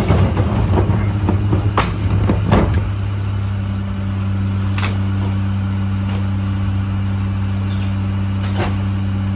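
Mack LR garbage truck's diesel engine running steadily nearby, with clattering and knocks in the first few seconds and a few sharp clicks later on.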